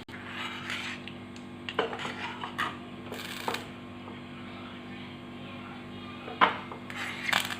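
A metal spoon clinking and scraping in a small pan while ghee, turmeric and milk are stirred together for biryani colouring, with a sharper clink about six seconds in. A steady low hum runs underneath.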